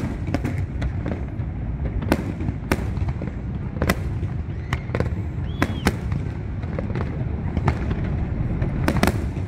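Fireworks display: a rapid, irregular string of sharp bangs and cracks from shells launching and bursting, over a steady low rumble.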